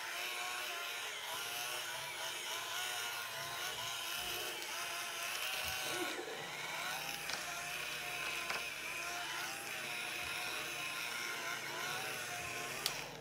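Electric facial cleansing brush with a ball-tipped massage head, its motor running as a steady buzz whose pitch wavers as it is pressed and moved over the skin, with a click near the end.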